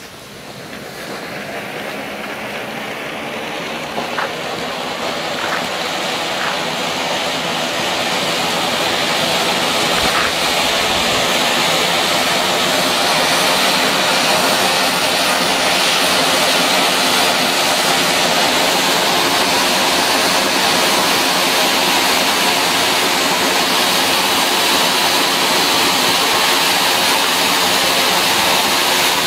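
FC8001 Gold Vulkan firework fountain burning: a steady rushing hiss that swells over the first ten seconds or so as the spark column grows, then holds level. A few faint ticks come through during the build.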